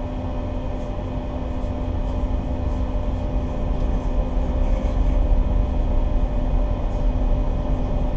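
Diesel engines of a river towboat running steadily: a constant low drone with a steady hum, getting slightly louder about halfway through.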